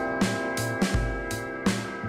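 Background music: a drum beat over held instrument chords.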